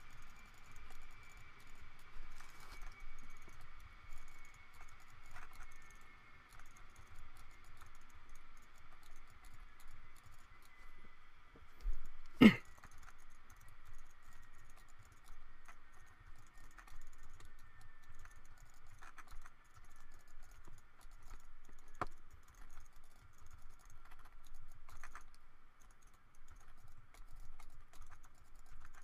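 Computer keyboard and mouse clicks from working in 3D software, scattered and faint, with one much louder click about twelve seconds in, over a faint steady high whine.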